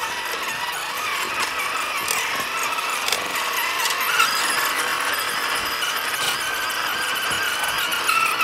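Electric motor and gearbox of a 1/12-scale MN86KS RC crawler whining as it drives over rough ground, the pitch wavering up and down with the throttle, with scattered clicks and crackles from the tyres and the plants they push through.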